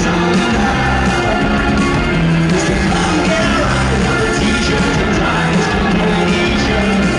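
Live rock band playing loud through an arena PA, with electric guitars, bass and drums under a sung lead vocal.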